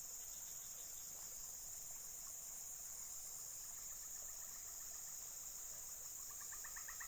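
Insects, such as crickets or cicadas, keeping up a steady, high-pitched chorus.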